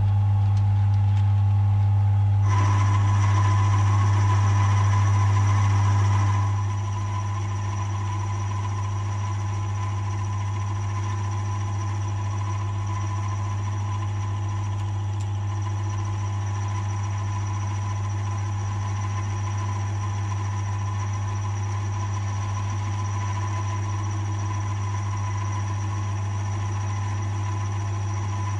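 AL960B mill-drill running steadily with a strong low hum, its spindle turning a boring head as the boring bar feeds into a 5/8-inch bore in a casting. A higher whine joins about two and a half seconds in, and the sound drops a little in level after about six seconds.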